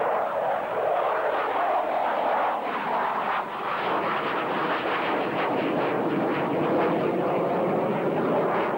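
A-4 Skyhawk jet's Pratt & Whitney J52 turbojet, a steady loud jet roar as the aircraft banks overhead.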